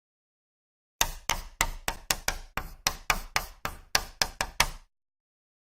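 Chalk writing on a blackboard: about fifteen quick, sharp taps of the chalk stick striking the board, starting about a second in and stopping near the end.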